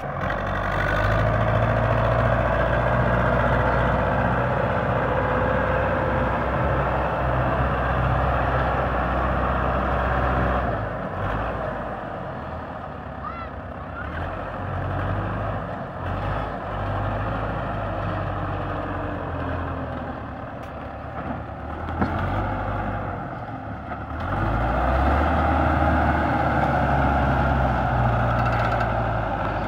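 Belarus 510 tractor's diesel engine working under load, pulling a trolley loaded with soil that is stuck in deep mud. It runs hard for about ten seconds, eases off through the middle, then pulls hard again near the end.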